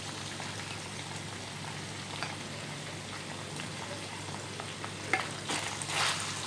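Mutton pieces sizzling and crackling in oil in a pan, the meat's water cooked off so the oil has separated and it is frying dry. From about five seconds in, a wooden spatula stirs and scrapes the meat around the pan in a few louder strokes.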